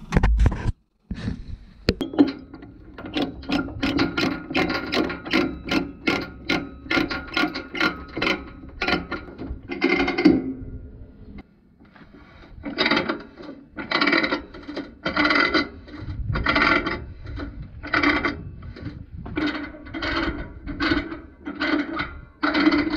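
Ratchet chain binder being cranked to tighten a tie-down chain, its pawl ratcheting with each stroke of the handle. The strokes come quickly at first, stop briefly about eleven seconds in, then go on more slowly, about one a second.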